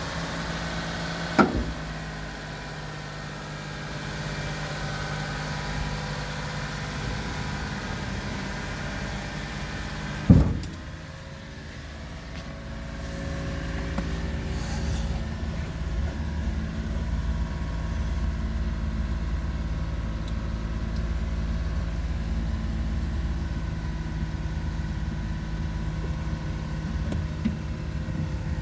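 Japanese mini dump truck's small gasoline engine running steadily, with two sharp thumps, one about a second and a half in and one about ten seconds in. About twelve seconds in the engine grows louder and stays at that level.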